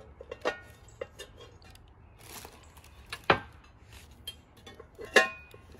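Cast iron pieces of an Iwachu multi-oven (pot, grate and lid) clanking as they are handled: a few metallic knocks, each with a short ring. The loudest comes about three seconds in, and another strong one near the end.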